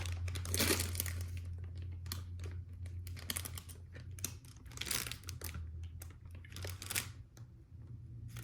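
Plastic LEGO parts bags crinkling and rustling as pieces are rummaged through, with scattered light clicks of plastic parts, over a steady low hum.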